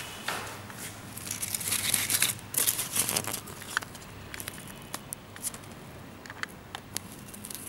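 Rustling and crinkling of a parka's fabric and its sewn-in care labels as they are handled, loudest and densest in the first half, then thinning out to scattered small clicks and rustles.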